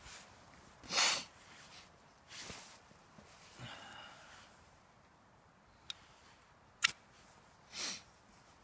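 A ferro rod and striker being handled: two sharp clicks, the second the loudest, among a few short sniffs.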